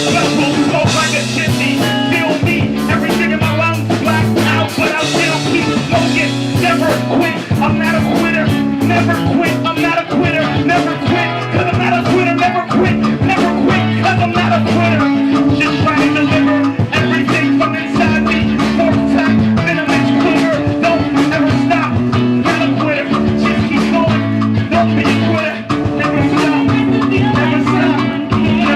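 Live band playing an improvised jam: a bass line stepping between held notes over steady drums, with other instruments on top.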